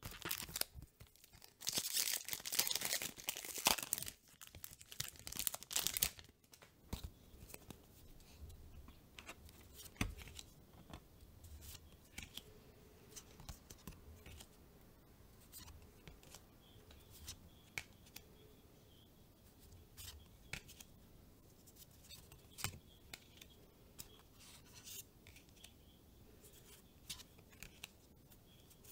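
A foil trading-card booster pack torn open and crinkled for about the first six seconds. Then quieter handling of the cards, with soft slides and light clicks as they are flipped through one at a time.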